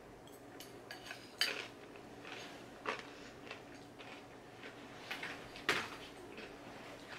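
A handful of light clinks of a spoon against a breakfast bowl, spaced a second or more apart, the sharpest near the end, with quiet handling between.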